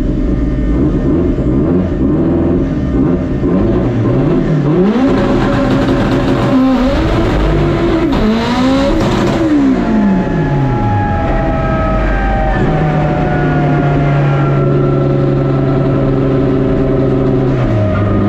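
Turbocharged Honda drag car engine heard from inside the car under hard acceleration. Its pitch climbs and drops several times over the first ten seconds, then falls away and settles into a steady drone from about two-thirds of the way in.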